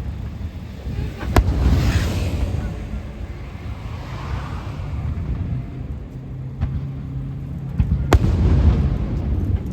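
Aerial fireworks shells bursting: two sharp bangs, about a second in and again near the end, each followed by a low rolling rumble. Crackling follows the first burst.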